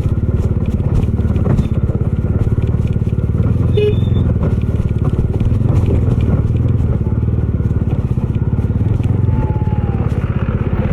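Bajaj Dominar 250's single-cylinder engine running steadily as the motorcycle is ridden along at an even pace, heard from on board.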